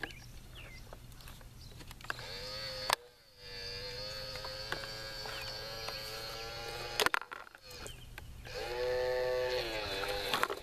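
Tonka Mighty Motorized Garbage Truck's small electric motor whining as the front loader forks lift and tip a dumpster over the hopper. It runs in two stretches with a pause and sharp clicks between them, and the pitch sags near the end as the arms reach the top.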